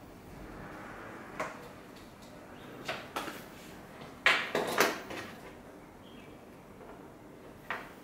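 Hands handling a power lead and plugging connectors into a car head unit: a few short clicks and knocks, with the loudest cluster of knocks about four to five seconds in.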